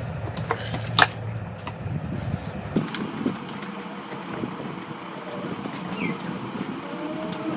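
Gaming chair armrest and seat parts being handled and fitted together: scattered clicks and knocks of plastic and metal, with one sharp click about a second in. A steady low hum underneath drops away about three seconds in.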